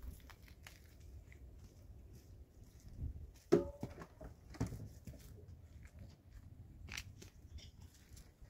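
Quiet footsteps and handling knocks as a wooden cabin door is opened, with a short squeak and knock about three and a half seconds in and a sharper click near the end.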